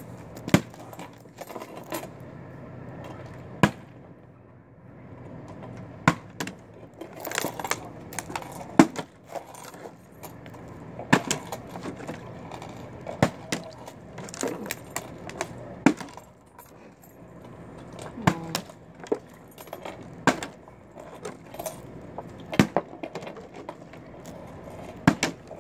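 Plastic water bottle repeatedly flipped and landing on a hard surface: about a dozen sharp knocks and clatters, roughly every two seconds.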